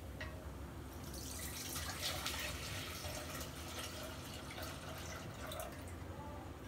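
Milk poured from a steel vessel into a stainless steel pot: a steady splashing pour that starts about a second in and eases off near the end.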